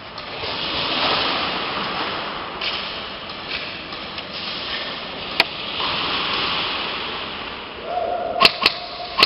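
Close rustling noise that swells and fades in slow waves. There is a sharp crack about five seconds in and a quick run of cracks near the end, the snap of airsoft guns firing.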